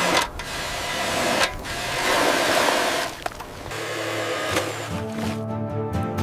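A loud, steady rushing noise, then, about three and a half seconds in, background music with low sustained string notes takes over.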